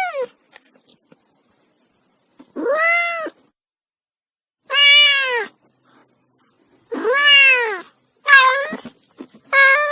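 Kitten meowing over and over: about five separate meows with short pauses between them, each rising and then falling in pitch, the last two shorter and closer together.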